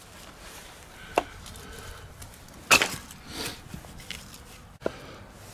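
Hatchet chopping into short logs, splitting them into kindling: a sharp strike about a second in, a louder crack as the wood splits just before the three-second mark, and a lighter knock near the end.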